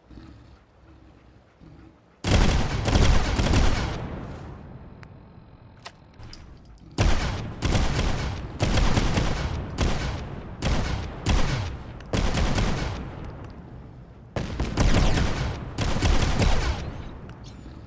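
Gunfire from an Enforcer pistol, a .30 Carbine pistol built on the M1 carbine: a rapid run of shots about two seconds in, then a string of about ten shots roughly two a second, then another quick cluster of shots near the end.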